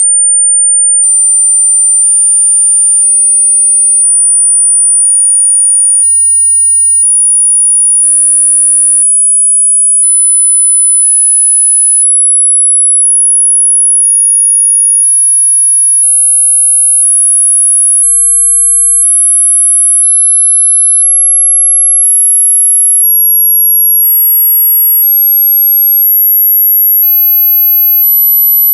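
A pure sine-wave test tone for checking high-frequency hearing, rising in 200 Hz steps about every two seconds from 9000 Hz to 11800 Hz. It holds one steady high pitch between steps at a constant loud level.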